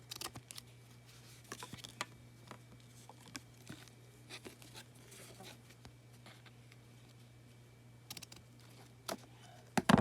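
Scattered light taps, clicks and rustles of paper craft pieces and trim being handled and pressed down while hot-gluing, over a faint steady low hum.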